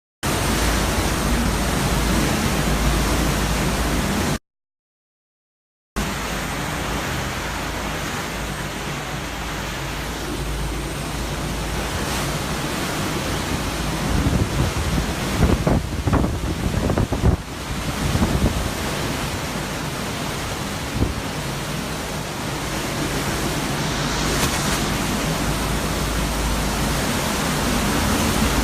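Hurricane-force wind, around 160–170 mph, blowing in a loud steady rush with a deep rumble of wind buffeting the microphone, and stronger gusts about halfway through. The sound cuts out completely for about a second and a half near the start.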